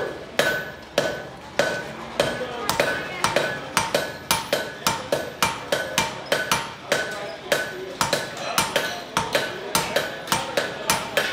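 Blacksmith's hammer striking a glowing-hot 1-inch steel cube held in tongs on an anvil, about two to three blows a second. Each blow brings a short ring from the anvil. This is the start of forging the cube flat into a dish.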